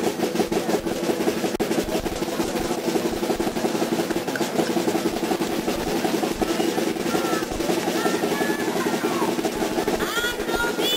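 Drums playing a continuous fast roll, with voices calling out near the end.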